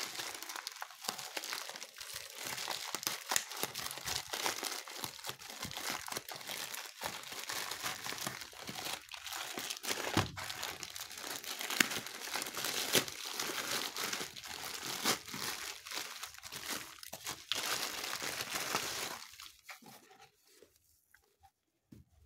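A mail package's wrapping being torn open and handled: dense crinkling and crackling with some tearing, which stops near the end.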